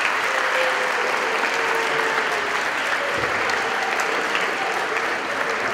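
A large audience of students applauding steadily.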